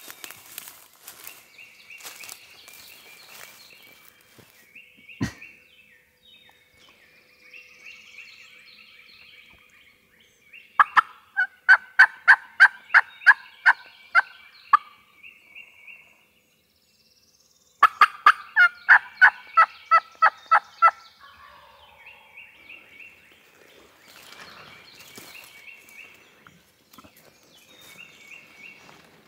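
Two loud series of turkey yelps, about a dozen evenly spaced yelps each at roughly three a second, the second starting a few seconds after the first ends.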